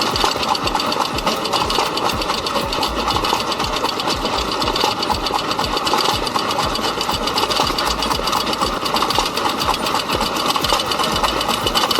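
1920s New Record drag saw's hit-and-miss engine running, with a fast, steady mechanical clatter.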